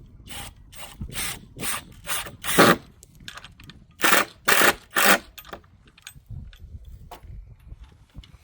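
Rhythmic rasping strokes on wood, about two a second: a run of six, a short pause, then three more.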